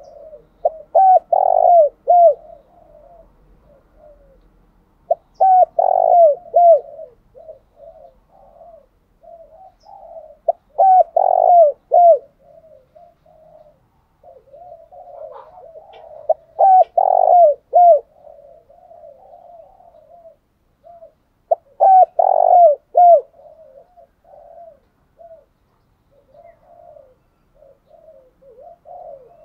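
Spotted dove cooing: loud phrases of three or four coos about every five to six seconds, with softer, quicker cooing in between.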